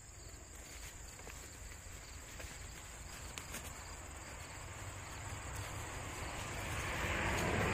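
Crickets trilling steadily in one high, unbroken tone, over a low rumble; a rustling noise grows louder near the end.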